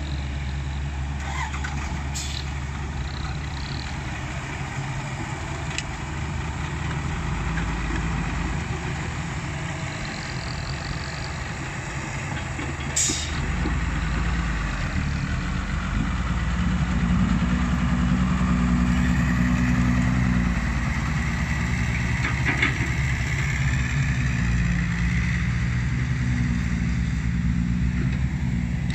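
Komatsu hydraulic excavator's diesel engine running, louder and working harder from about halfway through as it digs, with a sharp click or clank about thirteen seconds in.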